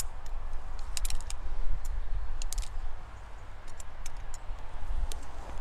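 Handling noise on the microphone: a low, uneven rumble with a dozen or so light, sharp clicks scattered through it.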